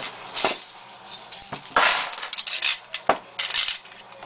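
Metal clicks and clinks from handling a Club steering wheel lock and its cross-pick tools: a few sharp, irregular clicks with a longer clatter about two seconds in.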